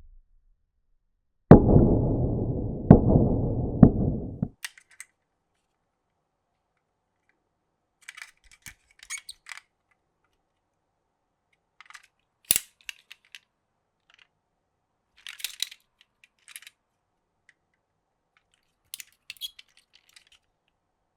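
Glass marbles running down a wooden marble run. A loud rolling rumble lasts about three seconds, then small groups of clicks and clacks come every few seconds, with one sharp click near the middle.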